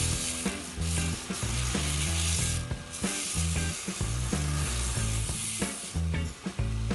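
Scratchy hiss of sandpaper working a new wooden tool handle, over background music with a stepping bass line.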